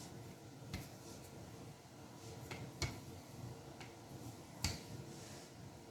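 Rolling pin working noodle dough on a cutting board that keeps sliding, giving three sharp knocks about two seconds apart.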